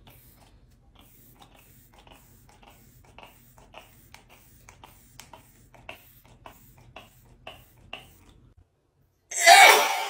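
A makeup setting spray bottle pumped over and over, quiet short mist hisses about three a second. After a brief pause, a woman gives a loud sneeze near the end, set off by the spray mist.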